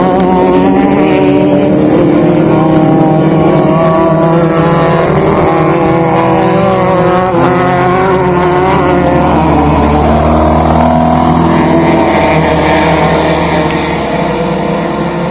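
Off-road desert race vehicle engines running loudly, their pitch shifting. A deeper drone joins about ten seconds in, and the sound falls off near the end.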